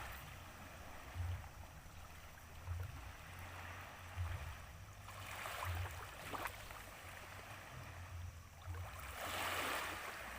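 Water washing and lapping at the shore, with two swells of rushing water about five and nine seconds in over a soft, uneven low rumble.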